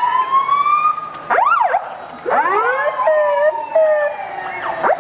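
Fire truck siren sounding through changing patterns: a slow rising wail, then quick up-and-down whoops, a short stretch of two-tone pulsing, and more sweeps near the end.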